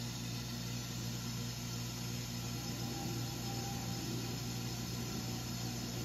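Steady hiss with a low, even hum from a water well system while the submersible pump runs, filling the pressure tank as the pressure climbs toward the switch's cut-off.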